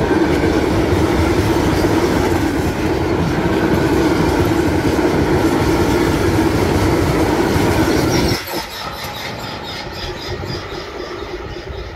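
Freight train of covered wagons rolling past close by: a loud, steady rumble of wheels on rail with clattering over the rail joints. About eight seconds in the sound drops abruptly to the quieter noise of the train moving away.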